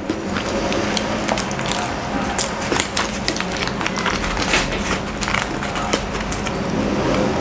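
Close-miked eating sounds: chewing a Double-Double burger and handling its paper wrapper, a dense run of small crackles and clicks.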